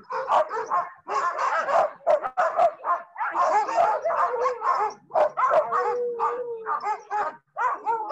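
A team of harnessed sled dogs barking, yipping and whining in a continuous, overlapping excited chorus, with one longer drawn-out call about six seconds in. The dogs are worked up and eager to run as the team is being hooked up.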